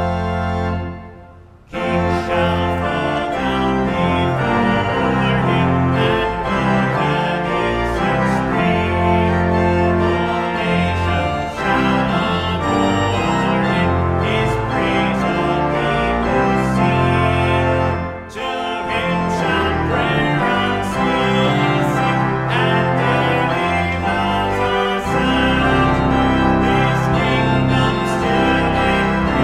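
Organ playing a hymn in sustained chords. The held chord fades out about a second in, and after a short pause the next verse starts. There is another brief break between phrases about eighteen seconds in.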